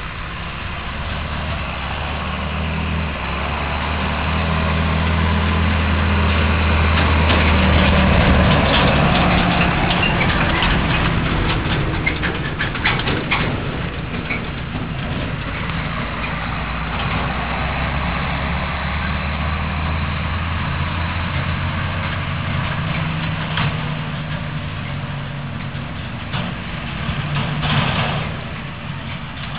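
A John Deere 7810 tractor's six-cylinder diesel engine runs under load as it pulls two HW 60 silage trailers past, the engine hum growing to a peak about eight seconds in. The trailers rattle and clatter as they go by around twelve to fourteen seconds in. Another tractor-and-trailer rig swells briefly near the end.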